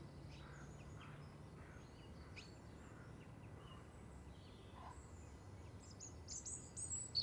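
Faint birds chirping outdoors: scattered short calls that come thicker and louder near the end, over a steady low background hum.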